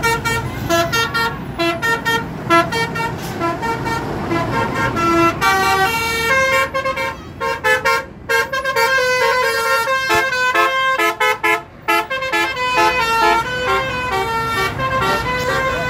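A bus's CM7 telolet horn, a multi-trumpet musical horn, playing a fast melody of short pitched notes, with a low engine and traffic rumble underneath.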